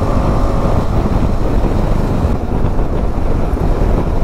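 Wind rushing over the microphone on a moving KTM 390 Adventure motorcycle, with its single-cylinder engine running steadily underneath at cruising speed.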